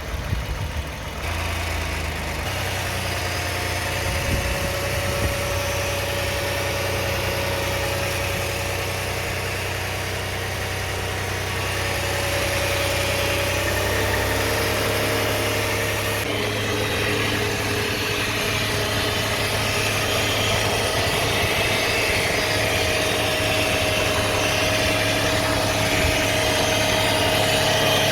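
2009 Toyota Sienna's 3.5-litre V6 running steadily at low revs, with a steady whine above the engine hum. The whine shifts pitch a little about halfway through as the sound grows slightly louder. The owner takes it for a strange noise from the transmission area.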